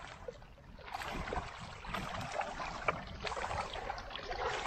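Thin plastic bag rustling and crinkling as a freshly caught carp is pushed into it, with a few sharp clicks and knocks from the handling.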